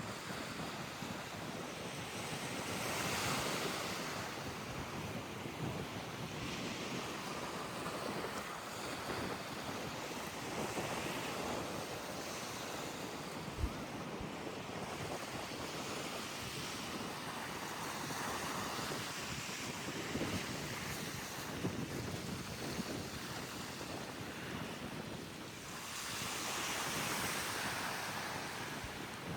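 Wind buffeting the microphone: a steady rushing that swells in gusts about three seconds in and again near the end, with one short knock in the middle.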